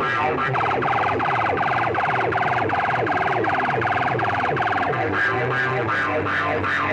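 DJ music blasting from a tall stack of horn loudspeakers, with a rapidly pulsing siren-like effect sound over it from about half a second in until about five seconds in, after which the music goes on without it.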